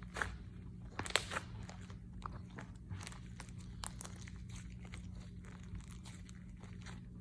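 Store-bought glitter slime being squeezed and stretched by hand, giving a string of small sticky clicks and bubble pops, the loudest in the first second or so.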